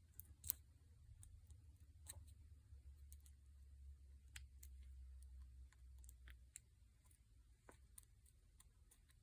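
Faint, irregular small metal clicks of a broken pick prodding the pins of a 7-pin tubular lock while it is being picked, the sharpest about half a second in, over a low handling rumble.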